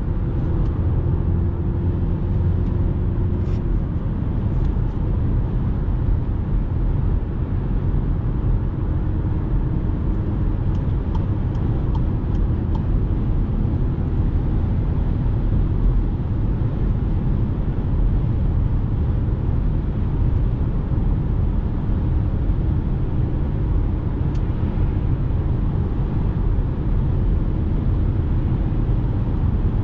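Steady cabin noise of a 2019 Skoda Kodiaq with a 2.0 TDI four-cylinder diesel, cruising at motorway speed: a low, even road and tyre rumble with the engine running underneath.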